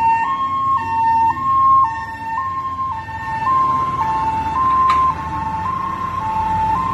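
Fire engine's two-tone siren, a high and a low note alternating about twice a second, over the low rumble of the truck's engine as it pulls away.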